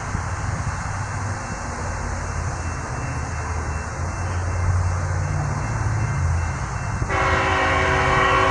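Diesel freight locomotive's engine rumbling as it approaches, growing louder midway, then its air horn sounds a long multi-note chord starting about seven seconds in.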